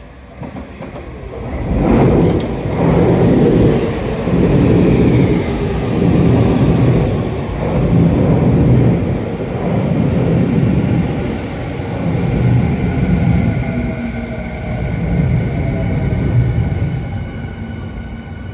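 Electric commuter train on the Tokyu Toyoko Line running in along the platform. Its wheels rumble in a regular beat as each car goes by, and a steady high whine comes in during the second half.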